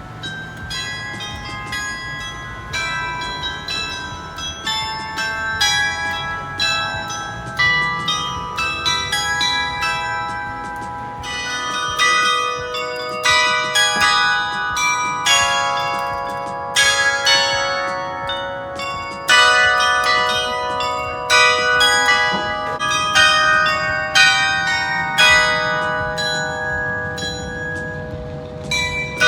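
Change ringing on the Swan Bells, a ring of English church bells: a steady run of bell strikes, several a second, each note ringing on over the next. The ringing grows louder about eleven seconds in.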